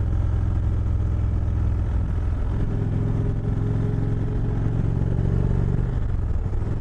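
2018 Indian Chieftain's Thunder Stroke V-twin running at road speed. About two and a half seconds in, the throttle opens and the engine note strengthens and rises slightly, then eases off near the end.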